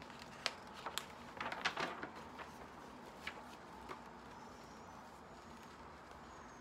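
A large picture book's page being turned, with a cluster of crisp rustles and crackles of paper over about a second and a half. A couple of lighter ticks follow as the book settles.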